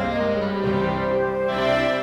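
Instrumental background music with sustained notes that change pitch every half second or so.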